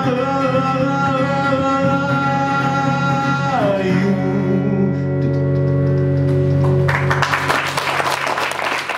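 Song ending: a male singer holds the last note over acoustic guitar, stepping down to a lower closing note about three and a half seconds in that rings on. Audience applause breaks out about seven seconds in.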